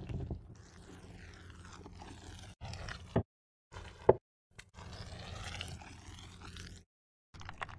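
Dough being worked on a wooden board: a wooden rolling pin rolling and scraping over pastry, then short separate bursts of handling sound cut off abruptly, with a sharp knock on the board about four seconds in.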